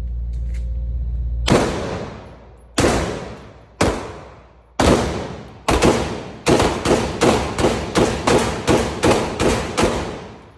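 AR-15 rifle fired repeatedly: five single shots about a second apart, then a quicker string of about ten shots at roughly three a second, each shot with a long echoing tail. A steady low rumble runs before the first shot.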